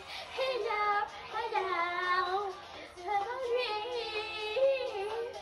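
A girl singing a pop song into a handheld karaoke microphone, in phrases of long held notes that glide between pitches.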